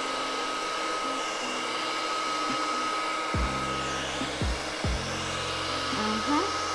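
Hair dryer blowing steadily on its higher speed, with a thin steady whine over the first few seconds, as it pushes wet acrylic paint across a canvas.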